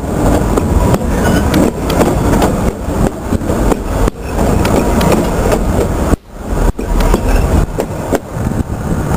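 Railway cars of a steam-hauled train rolling directly over the microphone: steel wheels rumbling and clacking on the rails, loud and close, with a brief drop about six seconds in.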